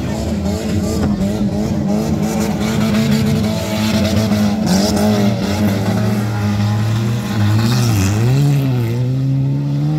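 Several stock car engines revving hard as the cars slide through a dirt-track bend, their pitch wavering up and down; near the end one engine drops and then climbs again. About halfway through, the tyres throw up loose dirt with a brief hiss.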